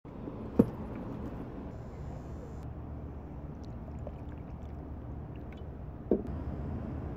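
Handling sounds over a steady low outdoor rumble: a sharp knock about half a second in as a bag is set down on a stone bench, and a second, weaker knock near the end.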